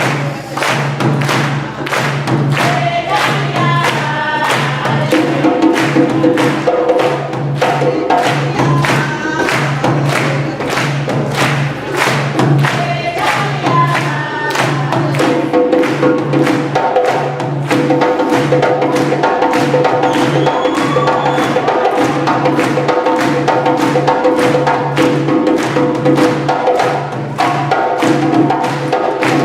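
Music with a steady drum beat and singing voices.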